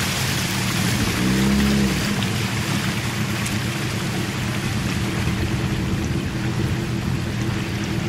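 A boat motor running steadily as the boat travels upriver, its pitch swinging up briefly about a second in, over a steady hiss of rain on the water.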